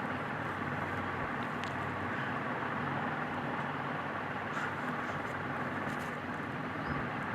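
Steady background hiss and hum with a few faint light clicks as small washers are fitted onto a table fan motor's shaft.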